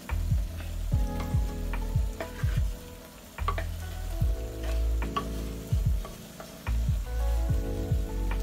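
Soya chunks sizzling as they are tipped into a hot aluminium kadai of masala, with repeated clicks and scrapes of a metal spoon against the pot and the pan as they are stirred in. Background music with low held chords plays underneath.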